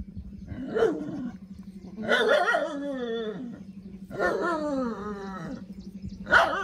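Goat in labour bleating: four drawn-out calls that fall in pitch, one about every one and a half to two seconds. A steady low hum runs underneath.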